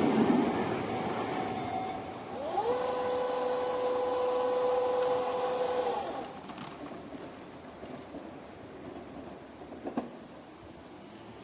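Tobu Tojo Line electric train passing at the level crossing, its rumble fading over the first two seconds. Then a tone rises and holds steady for about three and a half seconds before stopping, and a single sharp click comes near the end.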